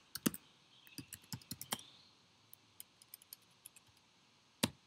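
Typing on a laptop keyboard: a quick run of keystrokes in the first two seconds, then a few faint taps, and one louder key press near the end.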